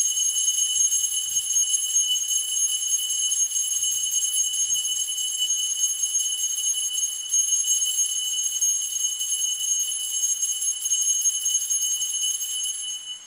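Altar bell ringing without a break, a bright steady jingling that dies away near the end. It marks the elevation of the host at the consecration.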